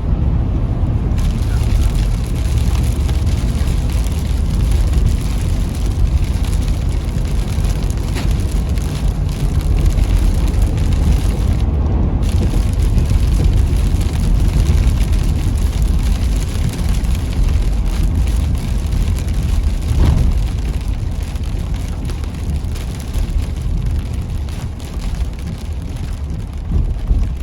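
Car driving at highway speed in a heavy rainstorm, heard from inside the cabin: a steady, loud low rumble with an even hiss over it, easing a little near the end.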